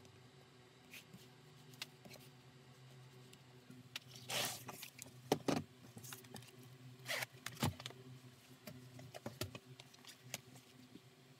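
Metal zipper on a leather bag panel being run open and shut by hand: a short zipping run about four seconds in and another about seven seconds in, with small clicks from the pull tab and the handled leather. A low steady hum lies underneath.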